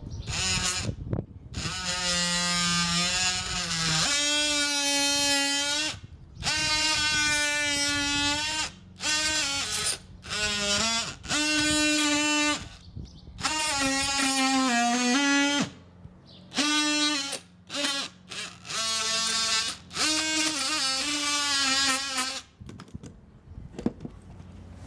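Oscillating multi-tool cutting into a wooden deck board around a stuck screw: a high, buzzing whine in a run of bursts of one to four seconds with short pauses between, its pitch sagging briefly under load about two-thirds of the way through. The board is rotten, so the blade cuts through easily.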